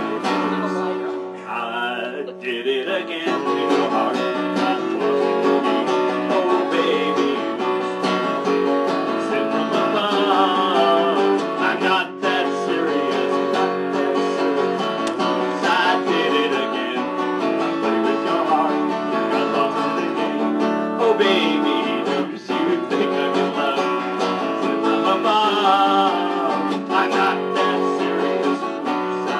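Acoustic guitar strummed and played live, with a singing voice coming in at times.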